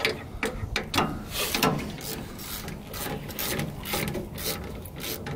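Hand ratchet wrench clicking in short, uneven strokes, with metal scraping, as the bolts of a Wilwood front brake caliper are tightened.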